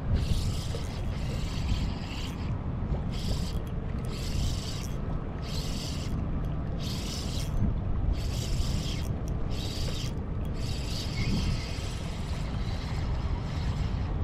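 Spinning reel being cranked to retrieve a lure on an ultralight rod: a rasping whir that swells and fades about once a second, over a steady low rumble.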